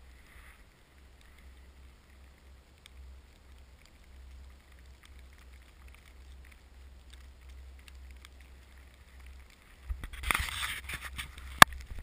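Falling snow ticking lightly against a GoPro's housing over a steady low wind rumble on the microphone. About ten seconds in there is a louder rustling burst with a sharp click.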